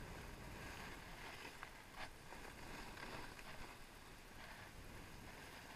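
Skis sliding on packed, groomed snow: a steady hiss of the bases and edges on the snow, with a few short scrapes as the edges bite in the turns.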